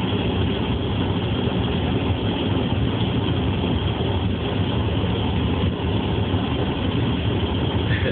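Car engine and cabin noise heard from inside the car: a steady low rumble under an even hiss, with no change throughout.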